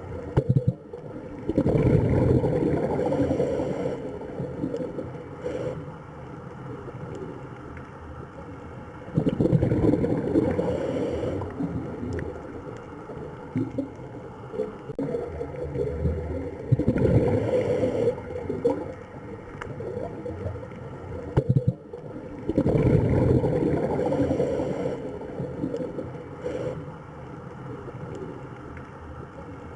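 Rushing, gurgling water that swells up loudly about four times, every six to eight seconds, and sinks back to a lower wash in between.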